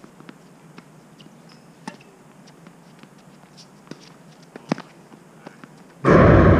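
Faint scattered knocks of tennis balls being hit and bounced on the hard courts. About six seconds in, a sudden loud rush of noise cuts in for under a second and stops abruptly; it is the loudest sound.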